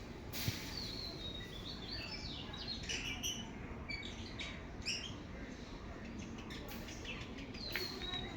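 Small cage birds chirping: a run of short, high chirps and quick falling notes, busiest in the first few seconds, with a single sharp click about half a second in.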